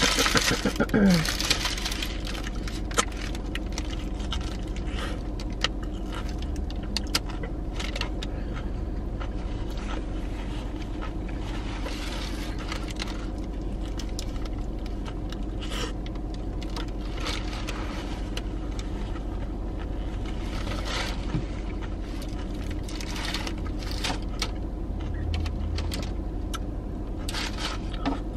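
Eating a messy sandwich: the paper wrapper crinkling, loudest in the first couple of seconds, then bites and chewing with scattered small clicks and rustles, over a steady low hum inside the car.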